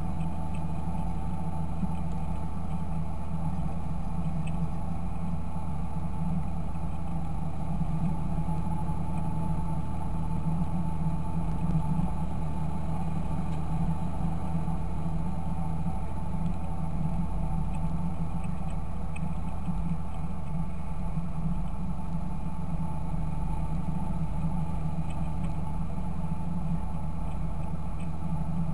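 Fendt Favorit 926 tractor's six-cylinder diesel engine running at a steady speed: a constant low drone with a faint higher steady tone above it, no revving.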